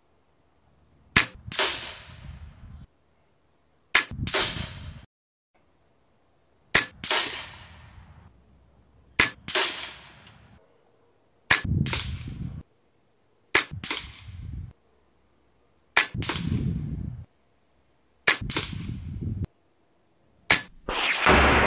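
A .25-calibre Ataman M2 PCP air rifle fired nine times in steady succession, a shot every two and a half seconds or so. Each shot is a sharp crack followed quickly by a second crack and a brief low rumble.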